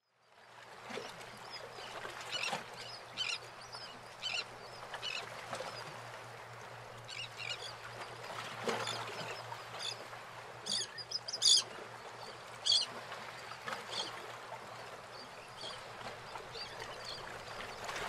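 Bird calls: scattered short, high chirps over a steady hiss and a low hum, fading in at the start.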